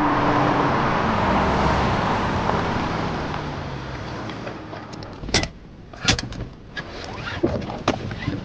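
Car road noise dying away as the car slows to a stop, then several sharp clicks and knocks from about five seconds in.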